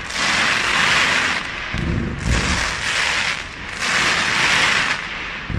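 Aerial fireworks display: three long waves of crackling from glittering stars bursting overhead, with deep booms of shells about two seconds in and again at the end.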